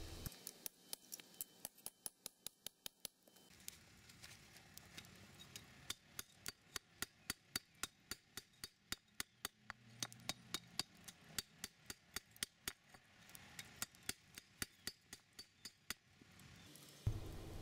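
Hammer striking a knife blade forged from an old file, laid on a stone block used as an anvil: sharp strikes at about three a second, in four runs with short pauses between them, while a distal taper is forged into the tip.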